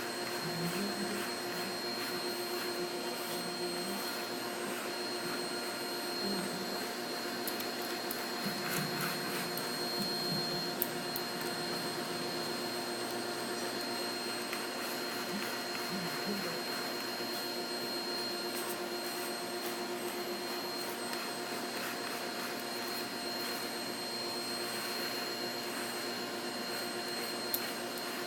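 Vacuum cleaner running steadily with a constant high motor whine, used as a grooming brush on a chihuahua's coat.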